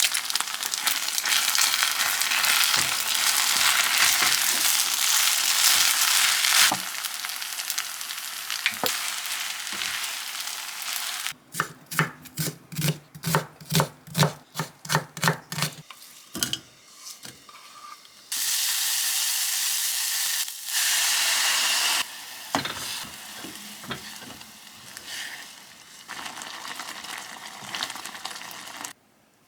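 Food sizzling and frying in a pan while it is stirred. Partway through comes a run of about a dozen quick, evenly spaced knocks, then the frying hiss returns.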